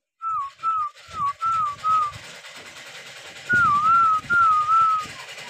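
A person whistling short, wavy notes in quick runs: five notes in a row, a pause of about a second and a half, then another run of about four.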